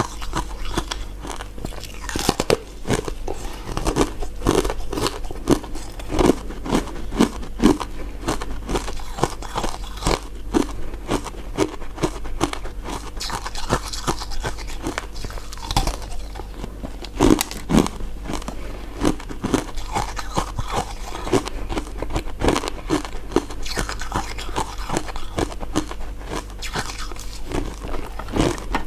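Close-miked crunching and chewing of crisp, icy crystal dessert pieces: many sharp cracks and crackles in quick, irregular succession as the pieces are bitten and chewed.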